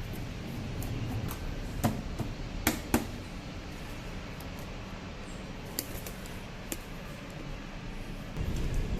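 A few sharp clicks and knocks of hard plastic scooter fairing parts being fitted and clipped into place, over a low steady hum. A louder low rumble begins near the end.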